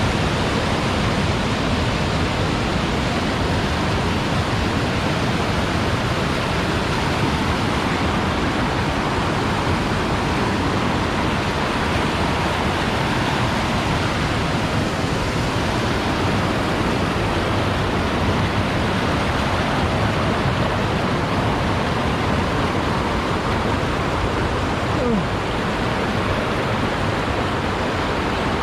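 Waterfall pouring over rocks, a steady, unbroken rush of water.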